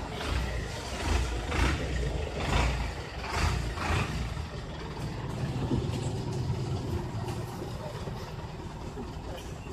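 Bus engines idling with a steady low rumble. In the first four seconds there is a run of short scuffs, about one a second.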